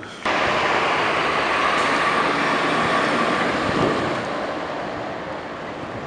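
A heavy dump truck fitted for snow clearing passes close on a snow-covered street, its engine and tyres running loud and steady. The sound starts abruptly and fades after about four seconds as the truck pulls away.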